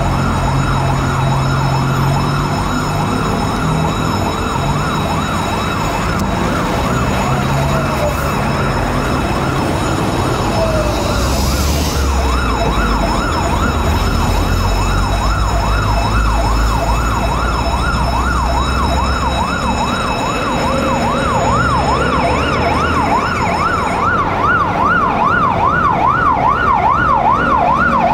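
Fire engine siren sounding a fast rising-and-falling wail, about two sweeps a second, getting louder toward the end as the truck pulls out, over a low diesel engine rumble and a brief hiss of air about twelve seconds in.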